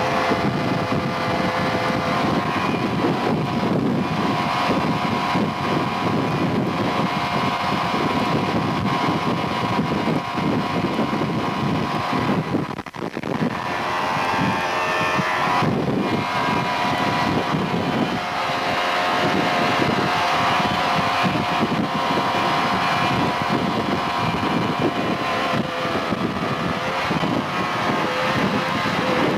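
A motor running steadily with a pitched hum, dipping briefly about 13 seconds in.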